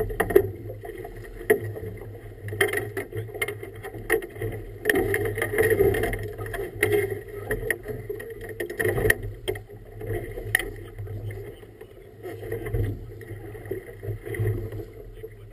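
Choppy river water slapping and splashing irregularly against a small boat's hull, over a steady low hum.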